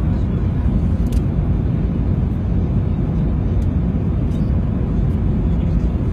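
Airliner cabin noise on the approach to landing: the steady low rumble of jet engines and rushing air heard from inside the cabin.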